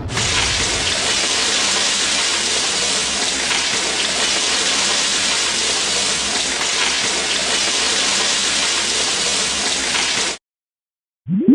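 Steady rain-like patter, a dense even hiss that cuts off suddenly about ten seconds in. Just before the end, quick rising chirps begin.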